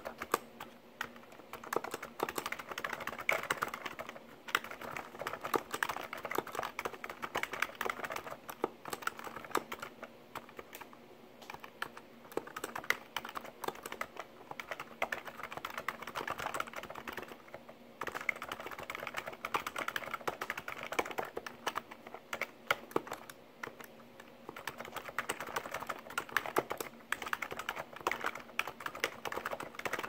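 Fast, continuous typing on a Happy Hacking Keyboard (HHKB) with high-profile keycaps and silent sliders: a dense stream of key clacks in runs, with short pauses every several seconds.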